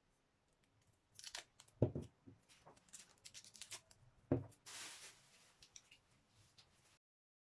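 Plastic wrapping crinkling and rustling as drinking glasses are unwrapped, with two knocks of a glass being set down on the countertop about two and a half seconds apart.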